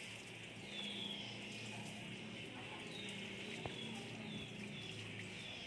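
A bird chirping repeatedly in short, high, falling notes, over a faint low steady hum, with a single sharp click a little past halfway.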